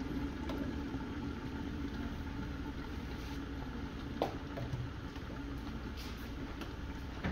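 Covered pot of curry chicken simmering on a low burner, under a steady low hum. One faint tap about four seconds in.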